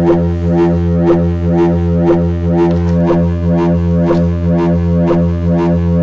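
Make Noise DPO oscillator drone on a steady low pitch, its wavefolder swept by MATHS cycling in the 'swirly bird' quadrature patch, so the tone brightens in a repeating pulse about twice a second.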